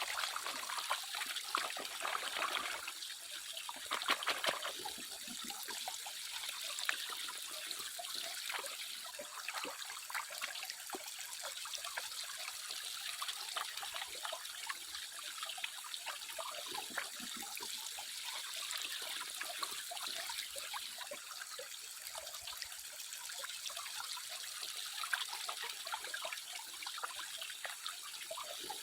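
Water trickling and splashing steadily, with many small irregular splashes.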